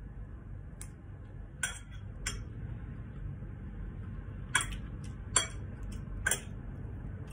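Metal spoon and fork clinking and scraping against a ceramic bowl while eating, about six short, sharp clinks, the loudest two a little past halfway, over a steady low hum.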